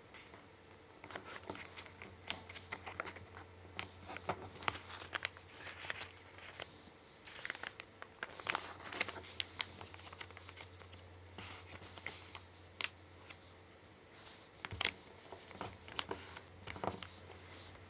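Square origami paper rustling and crinkling under the fingers as it is folded and the crease pressed flat, in scattered soft rustles and clicks.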